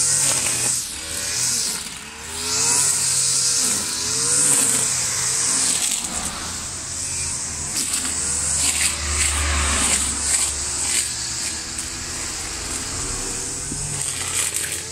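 Two-stroke brush cutter (string trimmer) running, its engine pitch rising and falling over and over as the throttle is worked. A passing vehicle adds a low rumble about nine seconds in.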